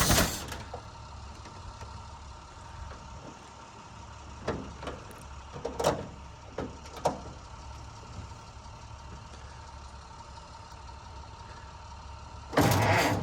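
1923 Model T Ford's four-cylinder engine idling steadily, with a few sharp mechanical knocks around the middle and a louder burst near the end.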